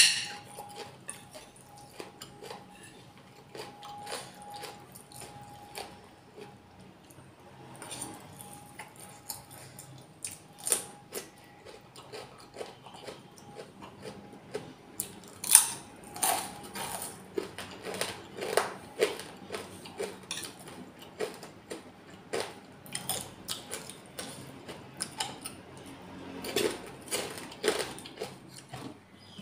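Close-up eating sounds of nasi pecel with cucumber and a crisp cracker being chewed and crunched: a long string of short crunches and clicks, loudest right at the start and about halfway through.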